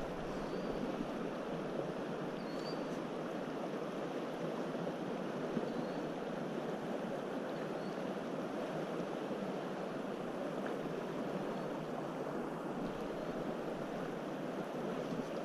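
Steady rushing of flowing river water, an even wash with no breaks.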